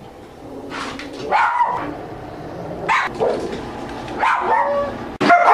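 Dog barking in short bursts about every second and a half while guarding its food bowl, a show of food aggression; the sound gets suddenly louder near the end.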